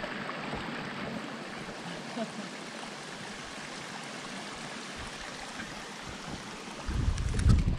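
Mountain creek running steadily, an even rushing of water. About seven seconds in, a louder low rumble comes in over it.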